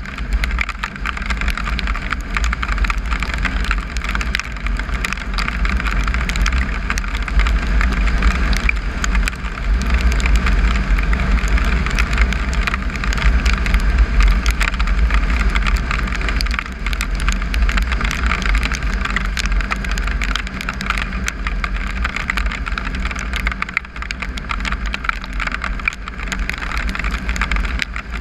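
Triumph Tiger 955i's three-cylinder engine running at road speed, with heavy wind rushing over the microphone and a steady crackle of gravel under the tyres.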